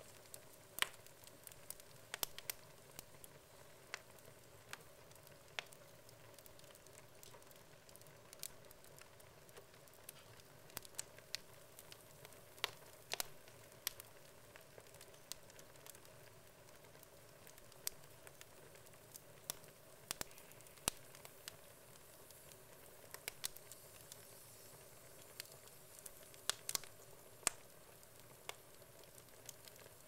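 Wood logs burning in a fireplace, crackling with irregular sharp pops.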